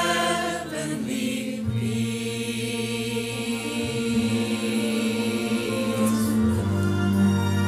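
Mixed choir singing long held notes in chords. The chord changes about two seconds in and again near the end.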